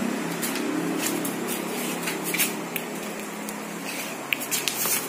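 Pot of herbal brew boiling: a steady hiss with scattered sharp pops, several of them bunched near the end.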